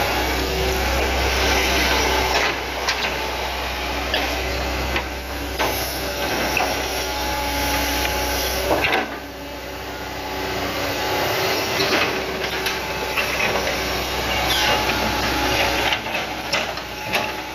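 Hitachi Zaxis 110MF excavator's diesel engine running under hydraulic load while it digs and lifts mud from a ditch, with scattered clanks from the bucket and boom. The low engine note drops off about halfway through.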